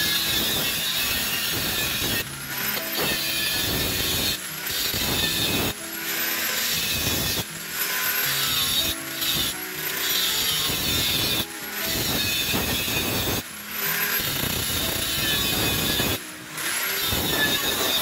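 Motor-driven abrasive cut-off wheel grinding through the steel shell of a refrigerator compressor to cut it open. A loud, harsh grinding with short dips every second or two as the shell is eased off and pressed back onto the wheel.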